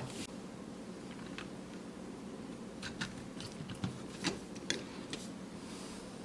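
Light clicks and taps of plastic toy construction vehicles being handled, a few sharp ticks clustered in the middle, over a steady low hum.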